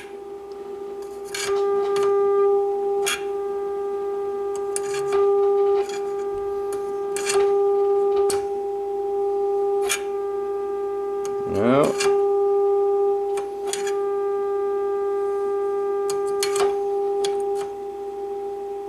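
A steady test tone from the 1936 Philco 116x radio's speaker, the signal generator's modulated 4 MHz signal picked up on the police band. Its level swells and dips several times as the oscillator trimmer is turned to peak it during alignment, with scattered clicks along the way.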